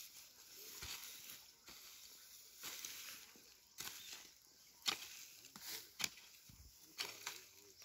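Hand hoe chopping into dry soil in irregular strokes, with dry grass and weeds rustling as they are pulled up by hand during land clearing.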